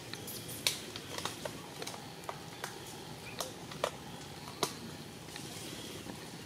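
Scattered sharp clicks and snaps, about ten at irregular intervals, the loudest a little under a second in, over a steady low background hiss.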